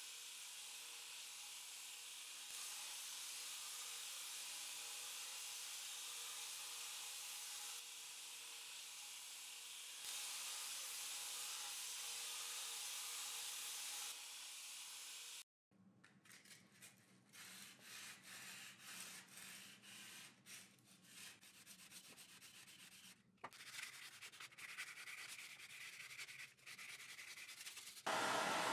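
Belt grinder running as a 52100 steel knife blade is ground on it, a steady grinding noise that steps up and down in level a few times before stopping abruptly about halfway through. Irregular fainter scraping strokes with a few sharp clicks follow, and near the end a gas torch comes in with a steady hiss.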